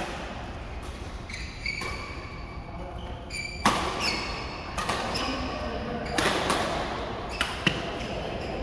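Badminton rally: rackets hitting a shuttlecock with sharp cracks every second or two, the loudest about four seconds in, with shoes squeaking on the court mat, echoing in a large hall.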